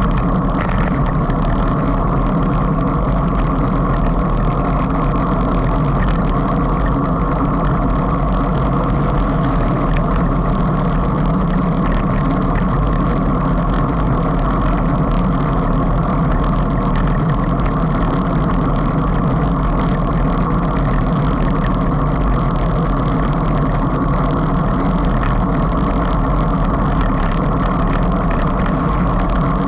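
Steady rush of wind on the microphone of a camera mounted on a road bike moving at about 35 km/h, mixed with tyre and road noise. It is a constant low rumble that does not change.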